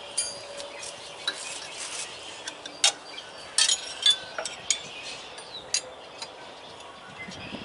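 Hand tools clinking and scraping against the steel alternator bracket of a Detroit Series 60 diesel engine as a seized bolt is worked on: a scatter of sharp metallic clinks, some with a short ring, the loudest a little under three seconds in and again around three and a half to four seconds in.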